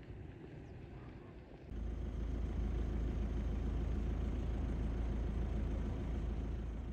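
A steady low rumble starts abruptly about two seconds in, after a quieter stretch, and holds steady.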